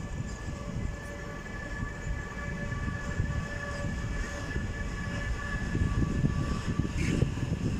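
Newag Dragon (PKP Cargo ET25) electric freight locomotive passing, its traction equipment giving a steady whine of several tones over the low noise of wheels on rails. The wheel noise swells near the end as the locomotive goes by.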